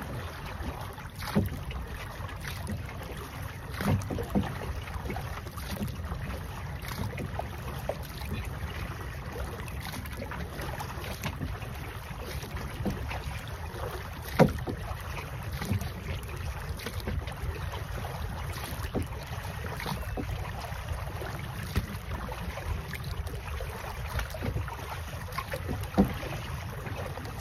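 Single wooden paddle stroking the water beside a small wooden outrigger canoe, with water sloshing and wind on the microphone. A few sharp knocks stand out, the loudest about halfway through and another near the end.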